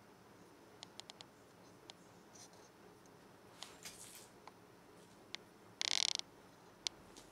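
Kitten playing with a sisal rope toy on a bed: faint clicks and scuffs of paws, claws and toy on the covers, with one brief, louder rasp about six seconds in.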